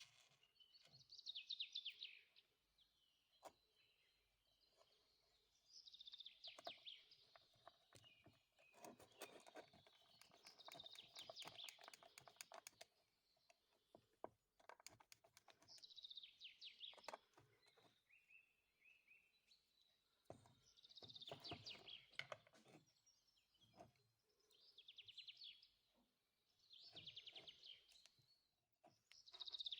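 Faint bird song: short trilled chirping phrases, repeated every few seconds.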